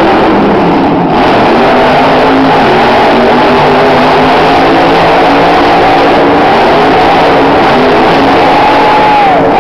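Maximum Destruction monster truck's supercharged big-block V8 held at high revs as the truck spins donuts, a loud steady engine howl, with the pitch dipping briefly near the end.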